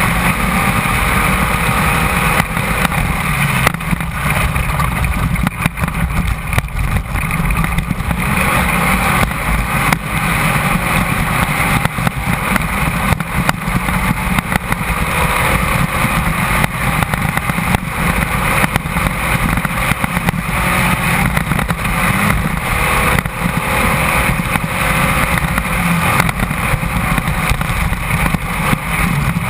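Class 1600 off-road race car's engine running hard under load, its revs rising and falling, mixed with wind and road noise and frequent knocks and rattles from the car over rough ground.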